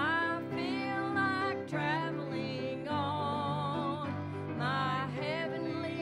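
A woman singing solo into a microphone over instrumental accompaniment, a slow church song with long held notes that waver with vibrato.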